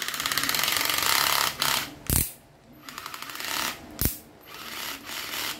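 A 7.2 V cordless screwdriver running with its slip clutch set, the clutch ratcheting in fast clicks in three spells with short pauses, and a couple of sharp knocks between them. The clutch setting is light, suited to electronics work.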